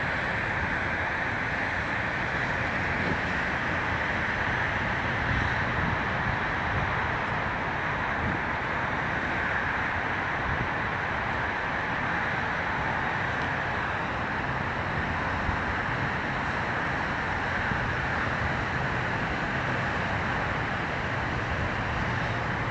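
Steady hiss and rumble of distant road traffic and wind, with no horn or distinct train sound yet.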